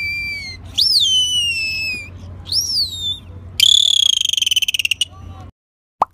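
Dolphin calls: a steady high whistle, then two whistles that sweep up and fall away, then a buzzy rapid-pulsed call lasting about a second and a half. A low rumble of underwater recording noise runs beneath them and stops with the calls.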